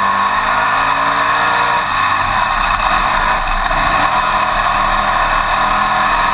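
Winged dirt modified race car's V8 engine running hard on track, heard loud from inside the open cockpit with heavy wind noise. Its pitch dips about two seconds in and then climbs back up.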